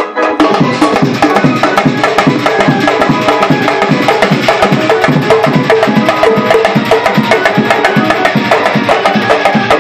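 A street percussion band plays a loud, fast, steady rhythm. Rope-tensioned drums are beaten with sticks alongside brass plates struck with sticks, about five beats a second, starting abruptly.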